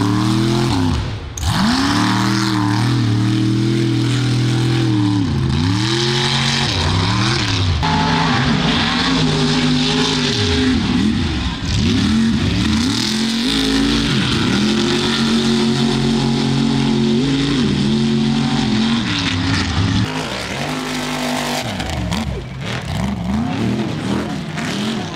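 Off-road race buggy's engine revving hard, its pitch rising and falling over and over as the throttle is worked through the turns of a dirt course. Under it runs a constant rush of spinning tyres throwing dirt.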